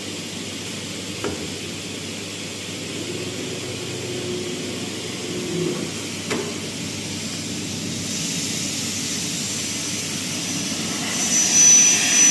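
Automatic CNC trim-cutting saw running with a steady mechanical hiss and a few sharp clicks; near the end a louder, high-pitched whine comes in as the blade spins up or cuts.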